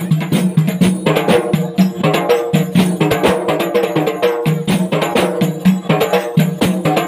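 Ensemble of Acehnese rapa'i frame drums beaten by hand, a dense, fast, unbroken rhythm of many strikes.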